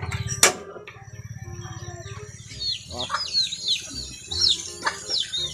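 Background music with a steady low beat and held notes, with a sharp click about half a second in. From about halfway through, a bird chirps repeatedly, in short high downward-sliding calls several times a second.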